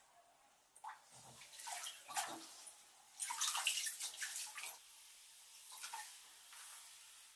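Water sloshing and splashing in a bathtub as a person rises and climbs out, with water streaming and dripping off wet clothing onto the tub. The splashing is irregular and loudest a few seconds in, then settles to softer running and dripping.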